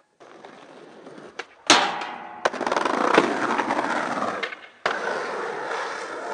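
Skateboard wheels rolling over paving bricks, then a smoother road, with sharp clacks of the board hitting the ground about two, two and a half and three seconds in. The rolling cuts off abruptly near five seconds and starts again, steadier.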